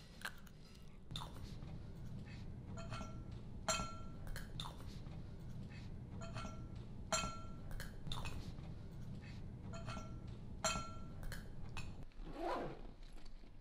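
Metal spoon and fork clinking against a plate while someone eats: repeated short, sharp clinks with a brief ring, one or two a second. The clinks stop near the end.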